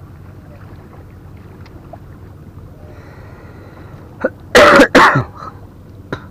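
A person coughing twice, loud and close to the microphone, about four and a half seconds in, over a steady low background rumble.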